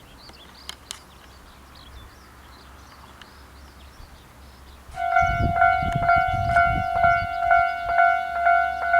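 Faint birdsong, then about five seconds in a Japanese railway level crossing's electronic warning bell starts up in its normal tone, a clanging chime repeating about twice a second. A low rumble sits under the first two seconds of the bell.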